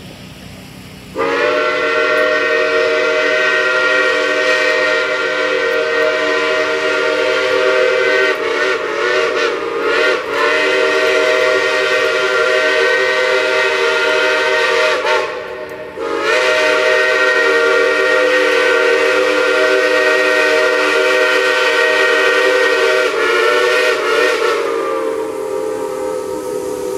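Steam locomotive's chime whistle blowing two long blasts of several notes at once. The first starts about a second in and lasts some fourteen seconds, and the second runs for about nine seconds after a short break. The pitch wavers in places as the whistle is worked, and the second blast trails off near the end.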